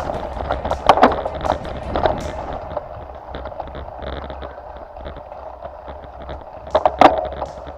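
Off-road vehicle driving over a rough track: a steady low rumble with rattles, and sharp knocks from the body about a second in and again near the end.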